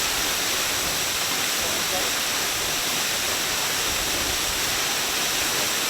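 Minoh Falls waterfall: a steady, even rush of falling water.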